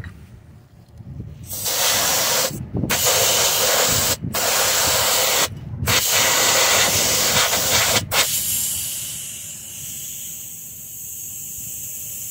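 Compressed air hissing into a truck tire through an air chuck on the valve stem, in loud stretches broken by four brief pauses. Near the end it settles into a softer, steadier hiss with a faint whistle. The tire is being topped up to about 90 psi.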